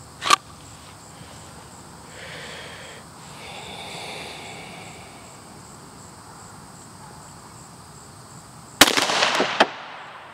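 A single .45 ACP pistol shot from a Glock 41 about nine seconds in, followed by a short echo. Just after the start there is one sharp click as the pistol comes out of its holster.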